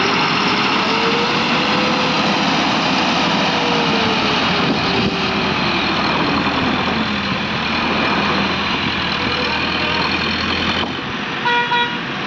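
Heavy Eicher truck's diesel engine running hard under load as the stuck truck is hauled out of loose dirt, its pitch rising and falling, with its drive wheels spinning. A short horn toot near the end.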